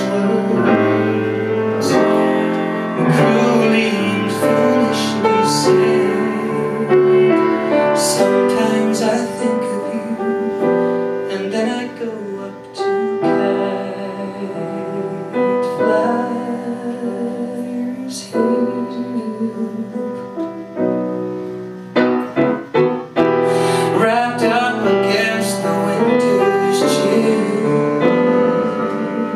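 A man singing a slow ballad into a microphone over piano accompaniment.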